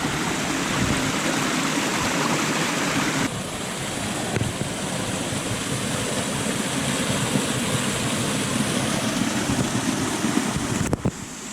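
Rushing mountain stream running high with rainwater, a steady noisy wash of water. The sound shifts abruptly about three seconds in and breaks sharply near the end.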